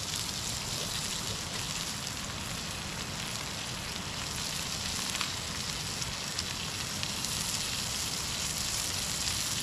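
Campfire burning with coho salmon cooking over it: a steady sizzling hiss with a few faint crackles about halfway through.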